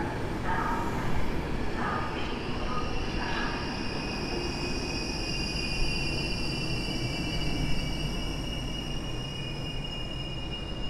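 Passenger coaches of an Intercity express rolling slowly past along a platform, with a steady low rumble and a steady high-pitched wheel squeal that builds from about two seconds in.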